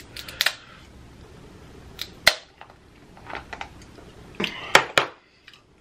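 Lobster claw shell being picked apart with a metal seafood fork: several sharp cracks and clicks, the loudest about two seconds in and near the end.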